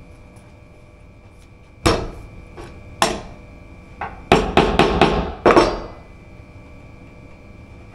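Hammer blows on a wooden counter top: two separate strikes about a second apart, then a quick run of about six blows, as screws in the counter are being freed.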